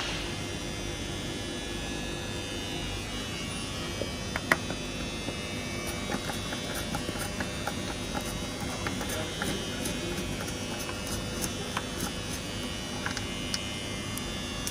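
A long T30 Torx driver undoing a radiator's mounting screws: small scattered clicks and taps over a steady buzzing hum, with one sharper click about four and a half seconds in.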